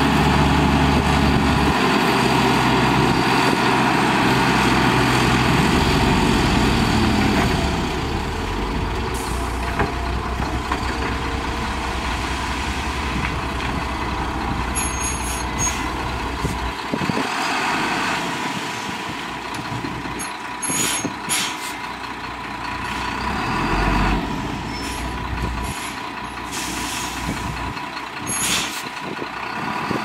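Diesel dump truck engines running as soil slides from a raised tipper bed, loud and low for the first several seconds, then dropping to a lower idle. Later, short air-brake hisses come from a second truck moving into place.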